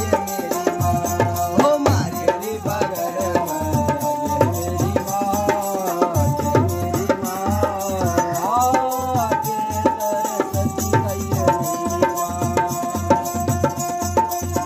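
Live North Indian folk devotional music: a bowed folk fiddle plays a sliding melody over the steady beat of a dhol barrel drum.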